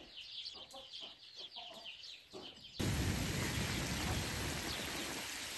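Faint clucking of chickens and chirping of small birds. About three seconds in, a steady, even hiss cuts in abruptly and runs on.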